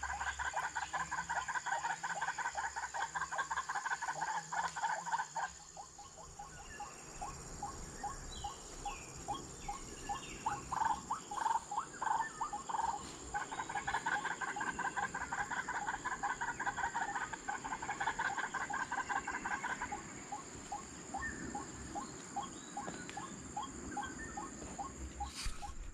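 White-breasted waterhen calling: fast runs of short, harsh, repeated 'wak' notes in long bouts, thinning out in the middle and building up again, over a steady high hum.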